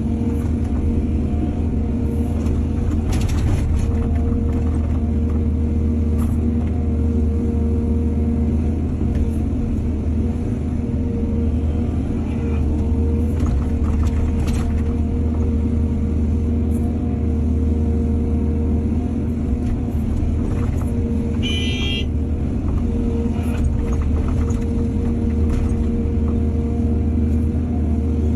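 Excavator's diesel engine running steadily with a deep hum, with a few faint knocks and a short high squeal about three quarters of the way through.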